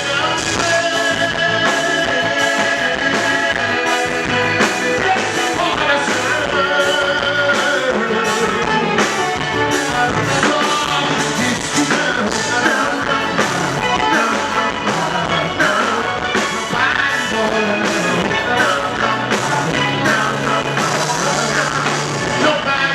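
Live band music with a steady drum beat and a melodic instrumental line, with no clear words sung.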